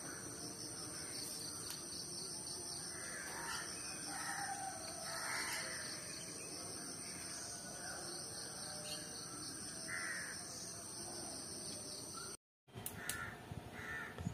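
Crows cawing several times in the background over a steady high hiss, the sound dropping out briefly near the end.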